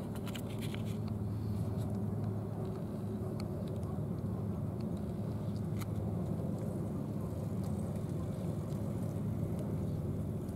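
Steady low rumble of background noise, with a few faint clicks in the first second.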